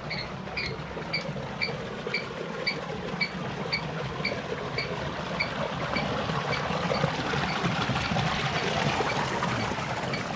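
Flowing water rushing steadily and swelling louder in the second half, with a short high animal chirp repeating about twice a second over it.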